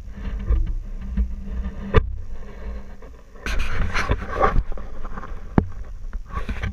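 Jeep engine rumbling low and slow as it crawls over rocks, with two sharp knocks of the vehicle striking rock and a louder burst of scraping and crunching about halfway through.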